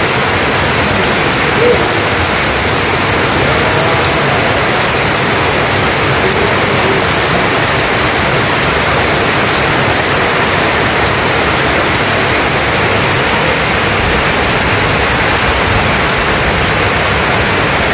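Steady rain falling hard and evenly on corrugated tin roofs and a flooded yard.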